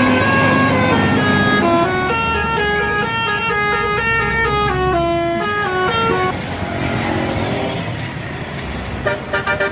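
Bus 'telolet' horn, a multi-tone air horn playing a quick stepping tune of several notes at once over a low engine rumble. The tune stops about six seconds in, leaving a noisy rumble with a few short pulses near the end.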